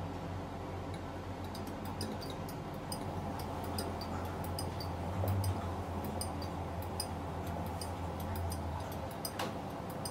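Plastic cling wrap crinkling in small clicks and crackles as hands press it loosely over a glass measuring cup, with a steady low hum underneath and one sharper click near the end.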